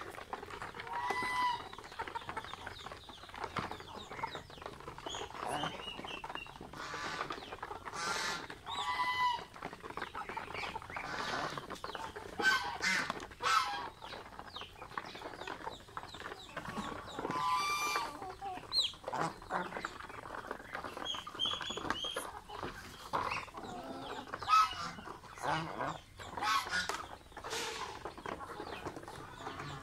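Mixed poultry flock calling, mostly chickens clucking in short, irregular calls, with ducks and geese among them.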